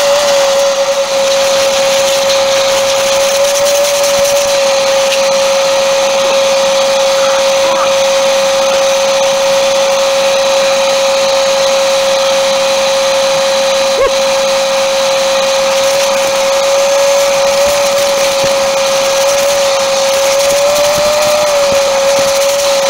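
Ridgid wet/dry shop vacuum running steadily, a constant motor whine over rushing air as its hose sucks debris out of the car's seat and floor. The pitch wavers slightly near the end, and there is one brief click partway through.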